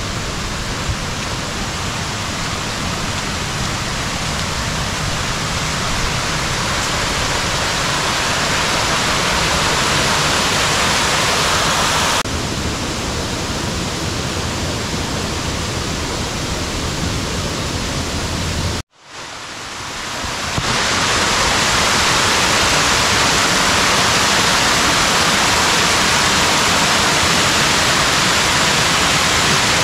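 Waterfall rushing with a steady, loud hiss of falling water. It changes character abruptly about twelve seconds in, breaks off for a moment past the middle and fades back up.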